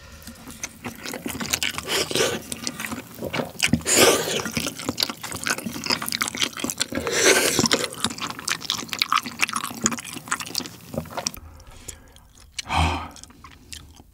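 Close-miked eating sounds: noodles slurped and chewed along with kimchi, with dense wet mouth clicks and smacks and two longer slurps. The eating sounds die down about eleven seconds in.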